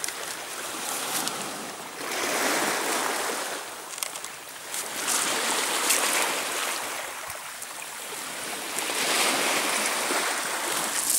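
Sea waves washing in on a pebble beach, swelling and falling back three times.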